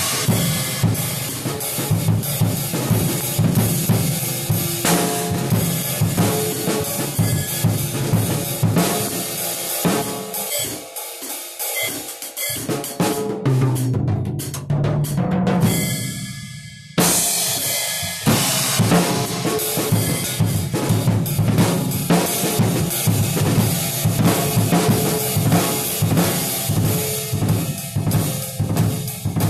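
Full acoustic drum kit being played with sticks: bass drum, snare, hi-hat and cymbals in a steady beat. About halfway through the playing thins out for a few seconds, then comes back in suddenly with a loud cymbal crash.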